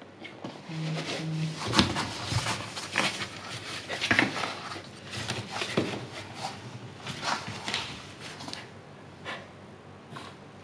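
Husky in labor moving about in a cardboard whelping box: a flurry of scrapes, rustles and knocks of paws and body against the cardboard and the paper scraps on its floor, easing off near the end.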